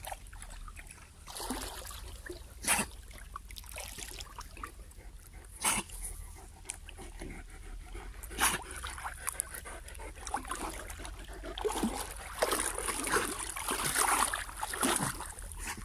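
Dogs wading and swimming through shallow lake water, sloshing and splashing, with three short sharp splashes about three seconds apart and busier splashing near the end.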